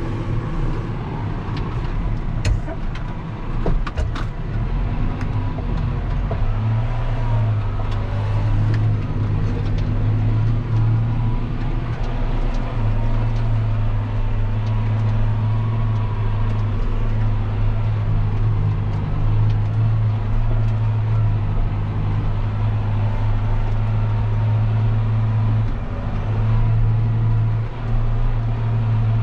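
John Deere 6140M tractor's diesel engine running steadily under load, heard inside the cab while it pulls a tine cultivator through the soil: a continuous low drone that grows stronger about six seconds in. A few light clicks and rattles come in the first four seconds.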